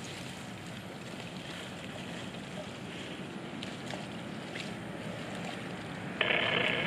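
Steady outdoor background noise, with a few faint clicks near the middle. About six seconds in, a loud, steady high-pitched buzz starts abruptly.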